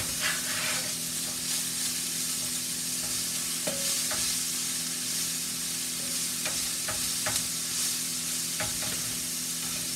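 Food sizzling in a frying pan while a spatula stirs and scrapes it, with scattered light clicks and knocks of the spatula against the pan, over a steady low hum.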